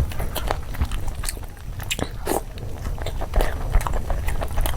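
Close-miked chewing and biting of food, with irregular short crunchy clicks and wet mouth sounds.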